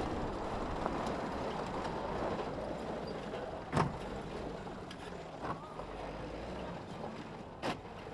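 Hyundai Galloper SUV's engine running as it works over dirt mounds and ruts off-road. A few sharp knocks stand out, the loudest about four seconds in and another near the end.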